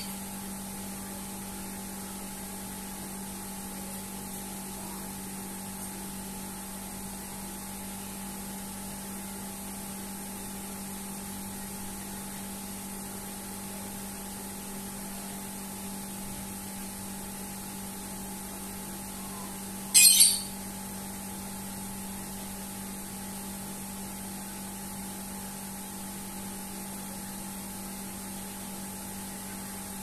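Steady electrical hum over a faint hiss. About twenty seconds in comes one brief, sharp, high-pitched sound, much louder than the hum.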